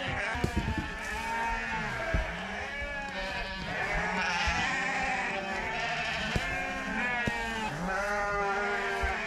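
A large flock of Dorper sheep bleating, many calls overlapping continuously, with a few sharp knocks in the first couple of seconds.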